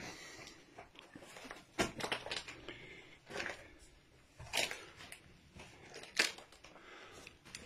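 Footsteps crunching over rubble of broken brick, plaster and wood, with irregular cracks and crunches, the loudest a little past six seconds in.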